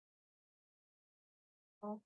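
Near silence, broken just before the end by the brief start of a person's voice.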